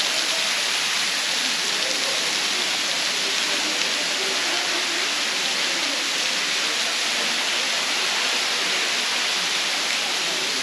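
Fall Creek Falls waterfall: a steady, even rush of falling water that does not change in loudness.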